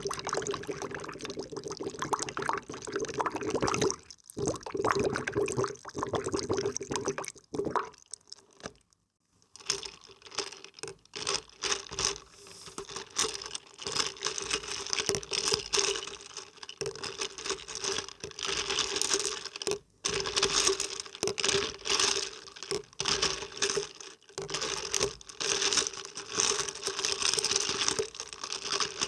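Close-up water being splashed and stirred by hand, a busy crackle of many small splashes and drips. It stops briefly about four seconds in, again around nine seconds, and once more near twenty seconds.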